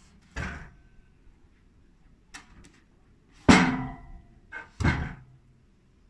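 A squared log being turned over on the steel bed of a homemade band sawmill: a few heavy wooden knocks and thuds against the metal frame. The loudest comes about halfway and carries a brief metallic ring.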